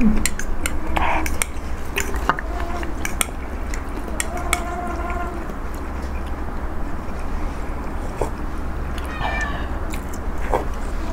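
Cutlery clicking against a plate while eating, with two short pitched cries: one held steady about four seconds in, and a shorter one falling in pitch about nine seconds in.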